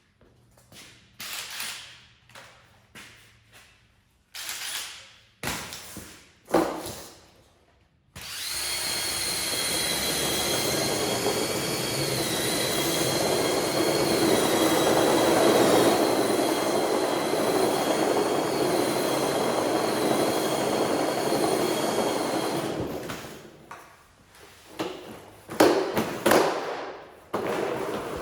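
A power tool running steadily for about fourteen seconds with a high whine over a broad whirr, preceded and followed by scattered knocks and clanks of handled metal parts.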